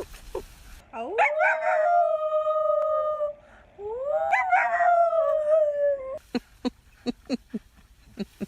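A dog howling: two long howls, each rising at the start and then held, falling slowly in pitch. A quick run of short sounds, about four a second, follows near the end.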